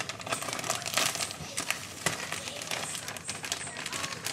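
A packet of crispy-fry breading mix crinkling and crackling in irregular small bursts as it is handled and emptied.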